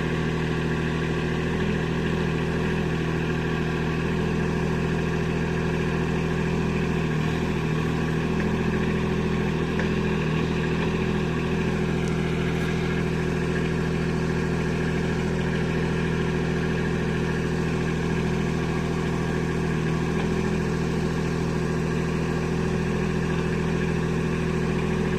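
Kubota B2601 compact tractor's three-cylinder diesel running steadily at a constant speed while it powers the backhoe.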